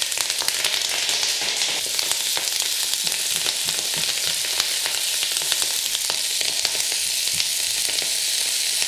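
Chopped cavolo nero (Palmkohl) leaves frying in hot olive oil in a pan. A loud, steady sizzle is shot through with crackles, and the leaves are stirred with a spatula.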